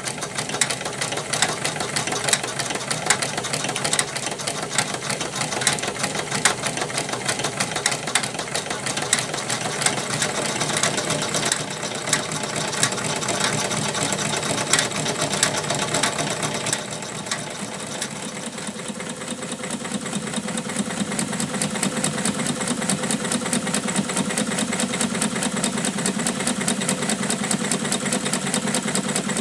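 Weeden No. 34 toy steam engine running fast, a rapid, even clatter of its moving parts and the belts and line shaft of a tin toy workshop it drives. About two-thirds of the way through, the clatter softens and a steadier hum comes up as the engine runs on.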